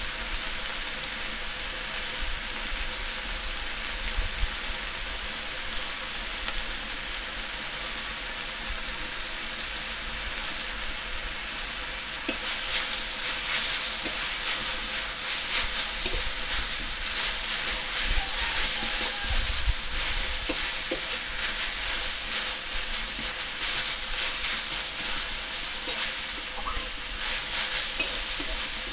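Leafy greens sizzling and steaming in a metal kadai, a steady hiss. About twelve seconds in, a metal spatula starts stirring them, scraping and clicking against the pan over a louder sizzle.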